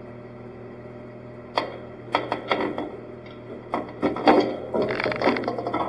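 Irregular clicks, knocks and rattles as the roof-mounted 360 camera and its mount on the roof rack are handled and adjusted. There are a few separate knocks about a second and a half in, then a busier run of clatter toward the end, over a steady low hum.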